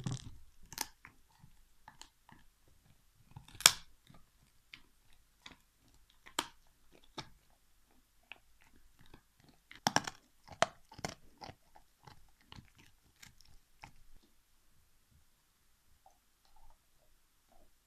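Alaskan Malamute chewing a big turkey bone: irregular cracks and crunches of teeth on bone, the loudest about four and ten seconds in, thinning to a few faint clicks after about fourteen seconds.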